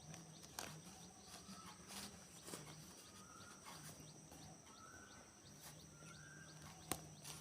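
Near silence, with a few faint clicks of plastic Lego bricks being handled and pressed together; the sharpest click comes about seven seconds in.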